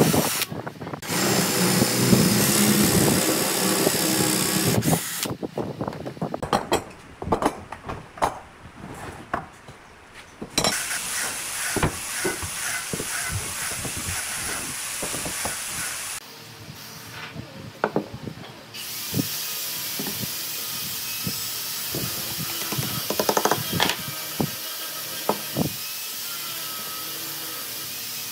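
A cordless drill boring into a wooden block for the first five seconds or so, with a short stop about half a second in. After that come scattered knocks and clacks of wooden pieces being handled on a workbench.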